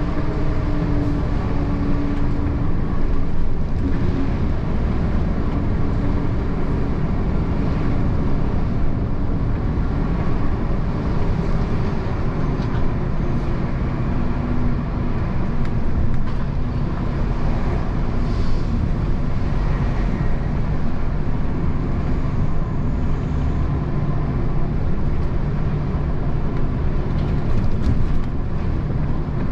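Semi-truck's diesel engine running under way, with steady road and tyre rumble. The engine note sits lower from about halfway through.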